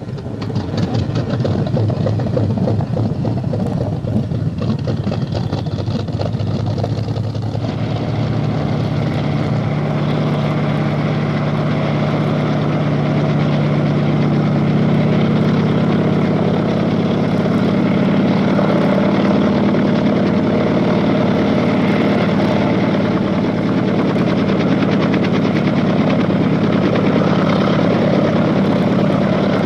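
Sikorsky HO4S helicopter's radial piston engine and rotor running steadily, a fast dense chop over a low hum that grows a little louder and more even about eight seconds in.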